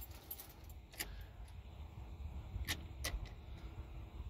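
Turn signal stalk of a 1997–2003 Ford F-series truck being moved, a few short clicks about a second apart, with no flasher ticking after them: the turn signals are dead, which the owner puts down to a failed flasher relay.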